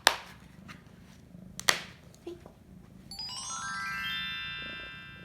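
Two sharp clicks, one at the very start and one under two seconds in. Then an added sound effect: a rising run of chime-like tones that build up one after another and ring on.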